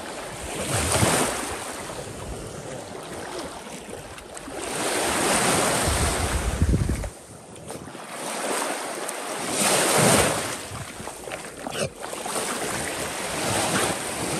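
Shallow lake water lapping and splashing around wading legs, with wind gusting on the microphone several times.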